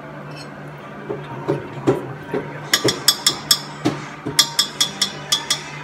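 A fast, uneven run of sharp metallic clinks and taps, a utensil knocking against the cooking pot while roast is served from it, over a steady low hum and faint background music.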